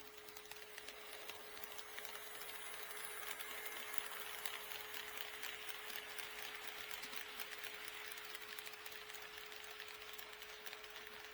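An HO scale model train running past on the track, a faint clicking and rattling of wheels and motor that grows louder towards the middle and then fades away. A steady faint hum holds one pitch under it throughout.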